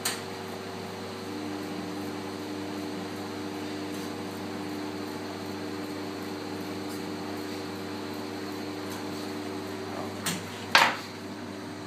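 Chocolate tempering machine running with a steady hum while chocolate drains from an upturned praline mould into its bowl. There is a sharp knock right at the start, and two louder knocks about half a second apart near the end.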